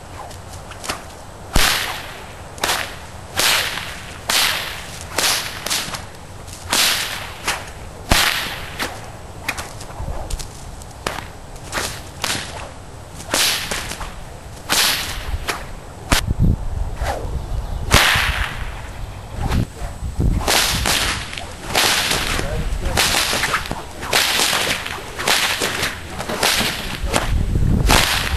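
Whips cracking over and over: a long run of sharp cracks, about one a second at first and coming faster in the second half.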